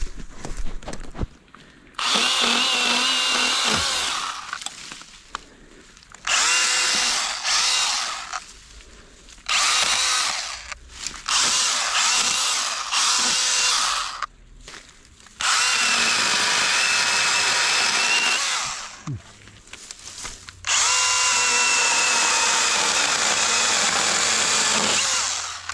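Makita MUC101D 18V cordless handheld chainsaw running in about six bursts of two to four seconds each, its motor whine mixed with the noise of the chain cutting through branches, with short pauses between cuts.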